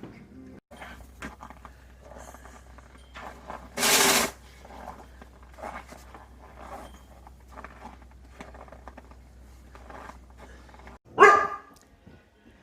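A dog barking: one loud bark with a falling pitch near the end, and a short, harsh, loud burst of noise about four seconds in, with faint scattered sounds and a low steady hum between.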